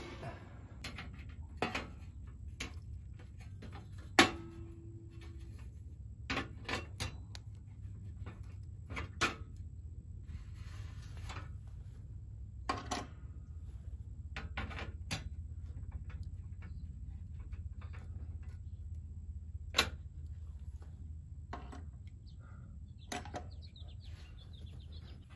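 Scattered clicks and metal knocks from handling a breaker panel's sheet-metal dead-front cover, with one sharp clank about four seconds in that rings briefly.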